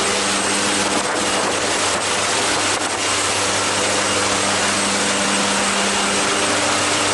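Jump plane's propeller engine running at a steady drone, an even rush of noise over a constant low hum.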